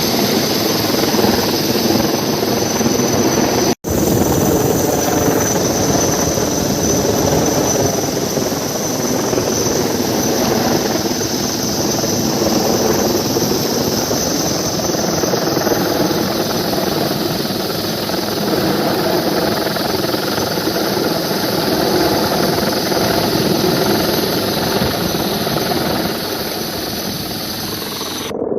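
Helicopter running steadily, a dense engine and rotor drone with a high whine over it. There is a momentary dropout a little under four seconds in.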